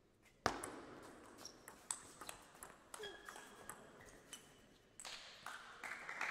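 A table tennis doubles rally: the ball clicks off rubber paddles and the tabletop in quick alternation, a dozen or so sharp hits over about four seconds, the first one the loudest. Near the end a rise of crowd noise follows.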